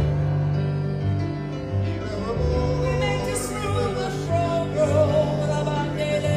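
Electronic keyboard playing held chords over a pulsing bass, with a woman singing a slow worship melody.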